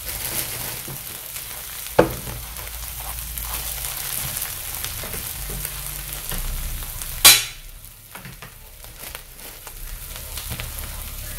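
Pulled pork and brisket slices sizzling steadily on a hot flat-top griddle as the pork is crisped and buns toast. A sharp knock about two seconds in and a brief, loud burst of noise about seven seconds in.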